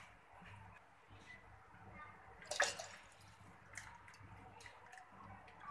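Milk poured from a packet into a stainless steel pot, a quiet liquid splashing with small drips and clicks, and a brief louder burst about two and a half seconds in.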